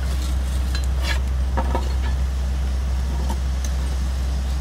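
Engine of heavy construction machinery running steadily with a deep, even drone, with a few faint knocks about a second in.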